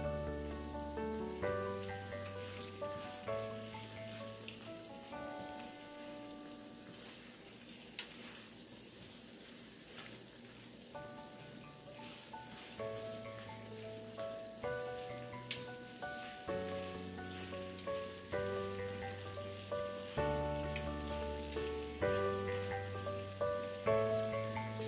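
Chicken meatballs in a butter and ketchup sauce sizzling in a non-stick frying pan, turned now and then with a silicone spatula. Gentle instrumental background music with held notes plays over it.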